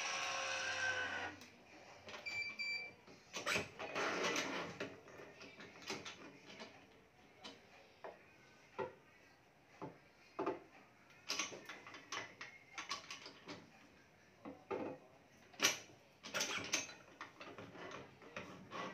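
Digital badminton stringing machine's electric tension head running for about a second and a half as it pulls a BG66 string to tension, then a short electronic beep. After that, scattered clicks and swishes of the string being threaded through the racket frame and the clamps being set.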